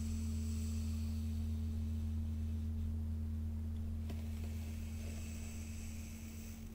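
A steady low hum or drone of held tones, with a faint scratching of a wooden stick dragged through sand above it and a light click about four seconds in.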